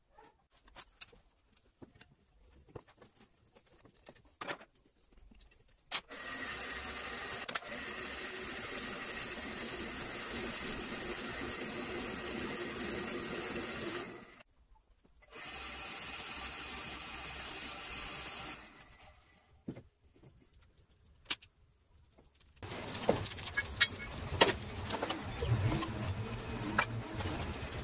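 Electric blower forcing air through a hose into a brick charcoal forge, running steadily with a high whine for about eight seconds, stopping briefly, then running again for a few seconds. Near the end come a series of light metallic clinks and knocks.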